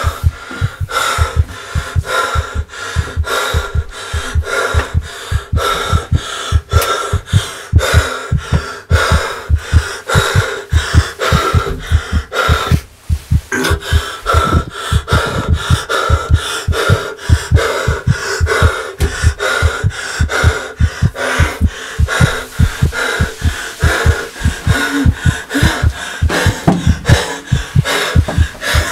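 Sound design for an asthma attack: a rapid, steady heartbeat thumping about two to three times a second over laboured breathing and a steady high hum. The beat breaks off briefly about 13 seconds in.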